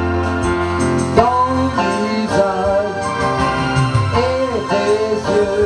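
Music played on an electronic keyboard: sustained chords and a bass line under a melody that bends and glides in pitch.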